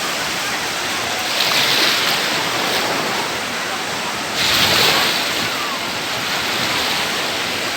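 Sea surf on a windy day: waves breaking and washing in over a steady rush of water, two bigger breakers surging about a second and a half in and about halfway through, with wind on the microphone.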